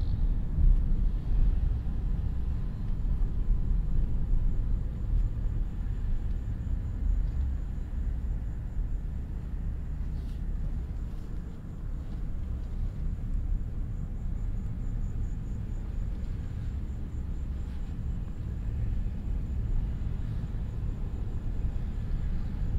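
A car driving along a suburban road: a steady low rumble of tyre and road noise, easing slightly about halfway through.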